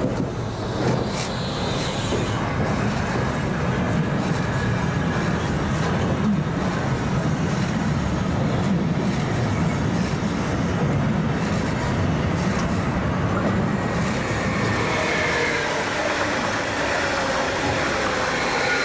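Freight train of covered hopper wagons rolling past close by: a steady rumble of wheels on rail. Near the end a passenger multiple unit passes on the next track, adding a whine that falls in pitch.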